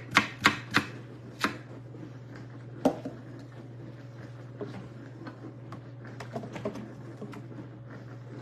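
Knife slicing a zucchini on a wooden cutting board: a quick run of sharp chops in the first second and a half, one more about three seconds in, then lighter taps and knocks.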